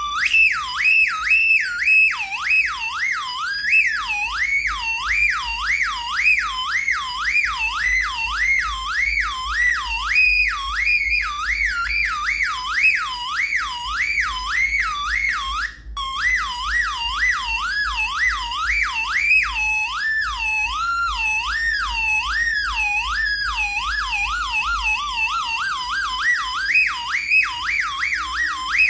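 Homemade electronic siren circuit sounding a warbling siren tone that sweeps up and down about twice a second, over a low hum. It cuts out for a moment about halfway through and then resumes. For a few seconds after that the sweeps run faster and lower before climbing back to full pitch.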